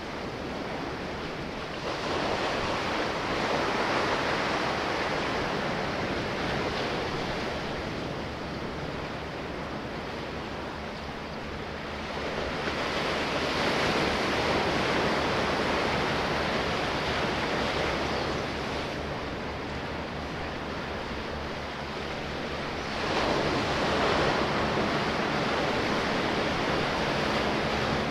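Sea waves washing in, three surges about ten seconds apart, each rising and then slowly fading, with a faint steady low hum underneath.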